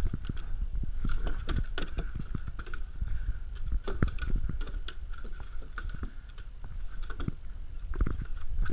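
Dog paws and nails clicking and knocking on a wooden deck, many irregular taps, over a low wind rumble on the microphone.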